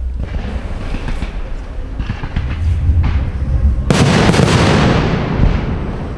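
Aerial firework shells launching and bursting: a few sharp pops, then a loud shell burst about four seconds in, its boom fading away slowly.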